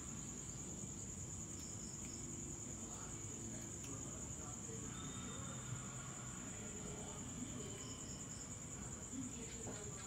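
Insects chirring in a steady, high-pitched trill with a fast, even pulse.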